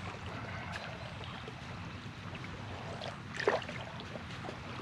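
Outdoor background noise: a steady low rumble with faint scattered ticks, and one short, louder sound about three and a half seconds in.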